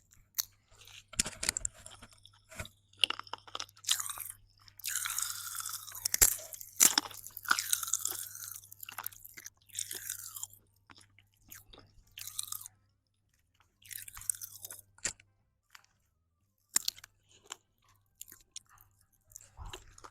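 Pop Rocks popping candy crackling in the mouth close to the microphone, with irregular sharp pops and crunchy chewing. The crackle is densest from about five to ten seconds in and thins out toward the end.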